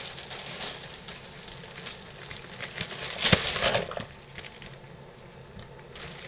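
Wax paper crinkling as it is gathered up, then a batch of corn-bread carp boilies slides off the paper into a pot of boiling water, with a loud burst of rattling and splashing about three seconds in.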